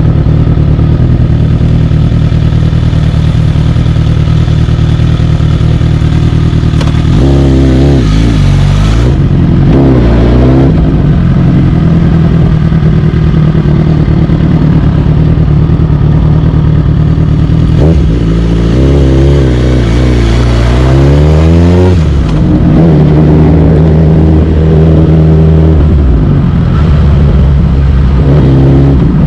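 Suzuki GSX-R1000 K8 inline-four engine running at low revs as the bike rides off slowly. The pitch rises and falls quickly twice about a quarter of the way in, and climbs in one longer rise about two-thirds through before settling back to a steady note.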